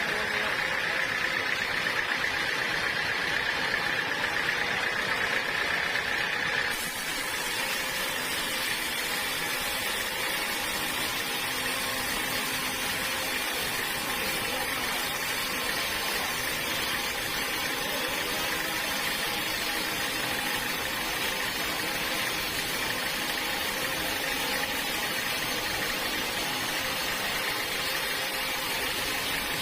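Sawmill machinery running steadily. About seven seconds in the sound changes abruptly, then runs on steadily.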